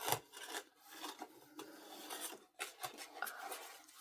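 Paper and card being handled and rustled, with short irregular scrapes and light ticks as a greeting card is taken up and opened.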